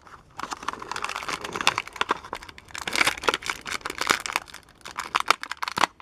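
Plastic blister packaging and its card backing being crinkled and torn open by hand to free a die-cast toy car, a busy run of irregular crackles and snaps.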